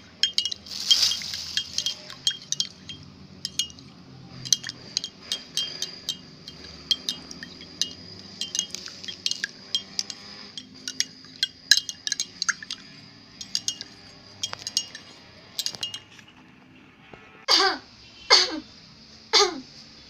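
Metal spoon stirring liquid in a drinking glass: a quick run of light, ringing clinks against the glass that stops about four-fifths of the way in. Near the end come three short squeaks, each falling steeply in pitch.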